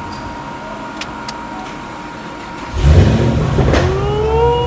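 Chevrolet Camaro SS V8, running through long-tube headers with no catalytic converters, goes from quiet to a loud low rumble about three seconds in. The rumble holds, with a whine rising in pitch and then levelling off over it.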